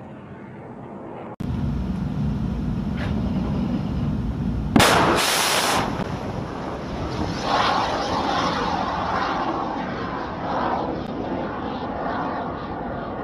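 Ship-launched missile firing: a low rumble, then a sudden loud blast of rocket ignition about five seconds in, followed by the rocket motor's rushing roar slowly fading as the missile climbs away.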